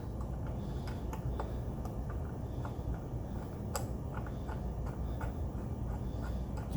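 Scattered, irregular light metal clicks of a crank-puller tool being handled and threaded into a bicycle crank arm, one sharper click just before the middle, over a steady low hum.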